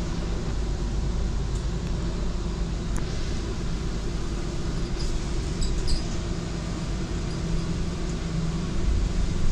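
Solaris Urbino 8.9 city bus running between stops, heard from the rear passenger seats: a steady engine and road rumble, with a few light clicks and rattles about halfway through.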